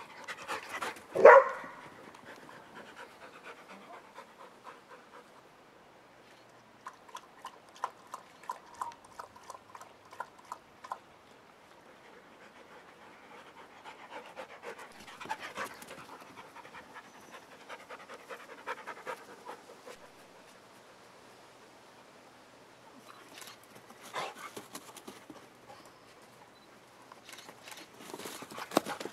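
Portuguese Water Dog panting hard in quick, rhythmic breaths, worn out from rough play, with one short loud sound about a second in.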